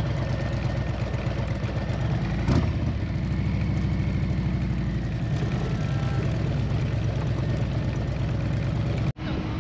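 Harley-Davidson Road Glide's V-twin engine running at low speed as the motorcycle rolls off slowly, with a single sharp knock about two and a half seconds in. The sound breaks off briefly near the end.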